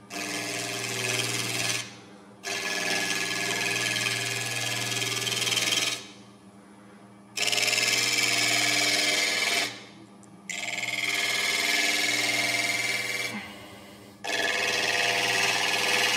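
A half-inch spindle gouge cutting a spinning cedar of Lebanon cube on a wood lathe, over the steady hum of the lathe. It cuts in five passes of a few seconds each, with short pauses between them.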